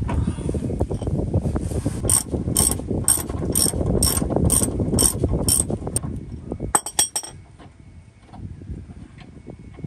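Socket ratchet clicking on a fuel-tank brace bolt under a van: about eight evenly spaced clicks, roughly two a second, then a quick flurry of clicks about seven seconds in. A low rumble of movement runs under the first six seconds.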